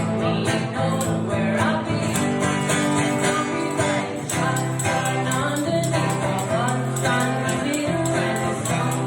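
A small band playing a song live: a voice singing over instruments, with a tambourine keeping a steady beat.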